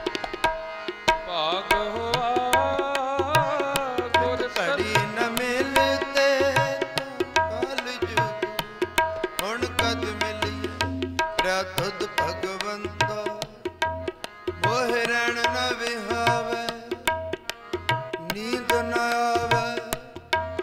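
Sikh shabad kirtan: tabla playing a steady rhythm under a harmonium's held notes, with a voice singing long gliding melodic phrases without clear words.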